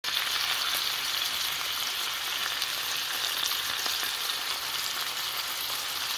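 Meat rolls frying in oil in a stone-coated nonstick frying pan: a steady sizzle with many small crackles.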